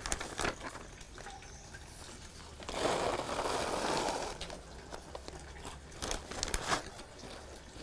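Clear plastic vacuum-sealer bag crinkling as it is opened and handled, then casters (maggot pupae used as fishing bait) poured from a plastic bait tub into the bag, a pouring rustle about three seconds in that lasts about a second and a half. A few light clicks and rustles near the end as more casters are scooped up with the bag.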